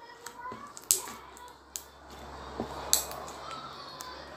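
Crunchy slime being pressed and squeezed by hand, giving off sharp crackling pops: three louder snaps about a second, nearly two seconds and three seconds in, with smaller crackles between them.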